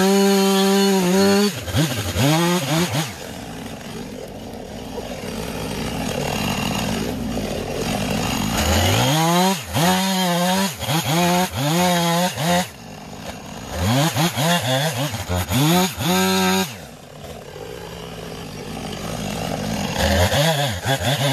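Husqvarna 455 Rancher two-stroke chainsaw cutting into a log, its engine revving up and down in several bursts with steadier running between.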